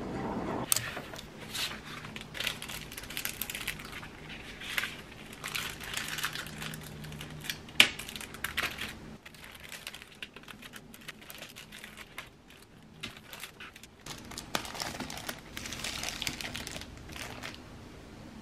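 Paper and plastic packaging sleeves crinkling and rustling as they are handled, with scattered light clicks and one sharp click about eight seconds in.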